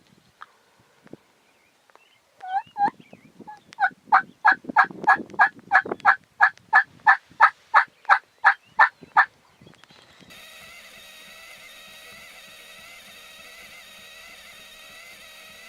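Wild turkey yelping: a couple of notes, then a run of about fifteen evenly spaced, loud yelps at roughly three a second. A steady background of music comes in near the end.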